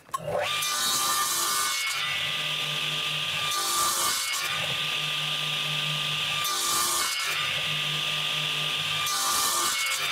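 Electric mitre saw starting up with a rising whine, then running steadily while its blade is brought down into a wooden board four times, each cut a short hiss through the wood about every two and a half seconds: a series of part-depth cuts to clear out a notch about halfway through the board.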